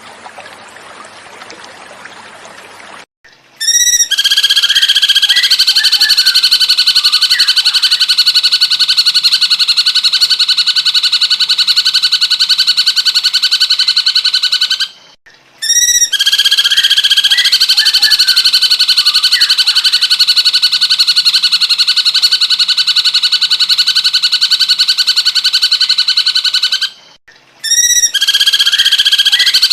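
Cucak cungkok call: a loud, very rapid buzzing trill at one unchanging pitch, held for about eleven seconds at a time and repeated three times with short breaks. Faint flowing water is heard in the first three seconds before the first call.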